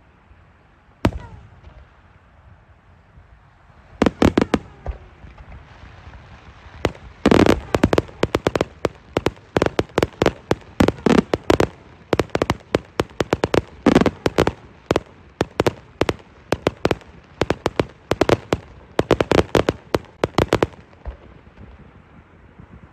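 Fireworks going off: a single bang, a short flurry of reports a few seconds later, then a long barrage of rapid sharp bangs lasting about fourteen seconds before it stops.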